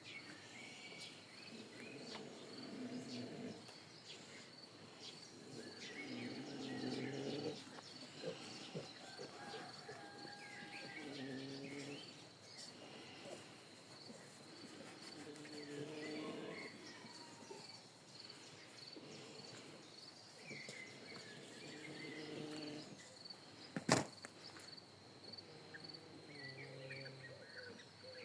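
A domestic boar snoring while asleep: low snores repeating roughly every four seconds, about seven in all. Crickets chirp steadily, a few bird calls come through, and there is one sharp click near the end.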